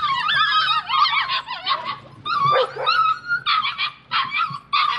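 Several puppies barking and yipping in high-pitched voices, the calls overlapping at first and then coming in short bursts.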